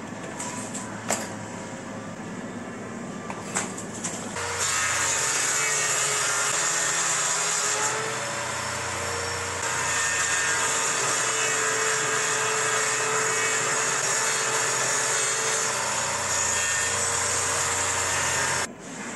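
Circular saw mounted as a table saw running and ripping a narrow strip off a board; a loud, even cutting noise with a steady whine sets in about four seconds in and cuts off abruptly just before the end.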